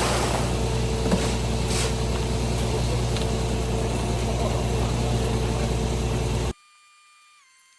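Concrete mixer truck's engine running steadily at idle. The sound cuts off abruptly about six and a half seconds in, leaving only a faint steady hum.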